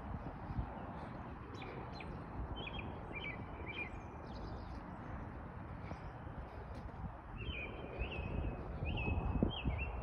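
A songbird singing short, clear phrases of whistled notes in two bouts, the second, near the end, longer. A steady low rumble lies underneath.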